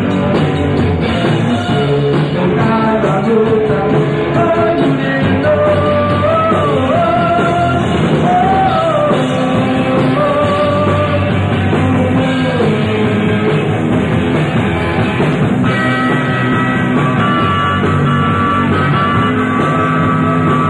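A rock band playing live, electric guitar and a bending lead melody over bass and drums; the melody moves into a new, steadier phrase about three-quarters of the way through.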